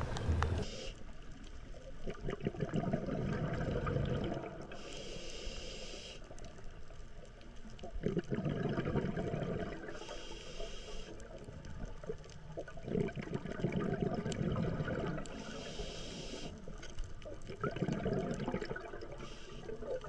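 Scuba diver breathing through a regulator underwater, about one breath every five seconds. Each breath in is a short hiss from the regulator, and each breath out is a longer burble of exhaust bubbles.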